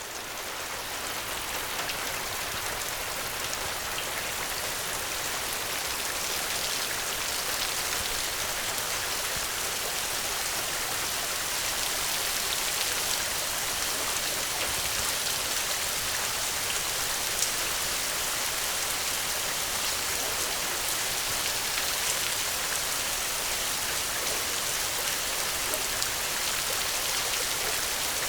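Steady rain falling: a dense, even hiss of drops on a surface, with now and then a single sharper drop standing out.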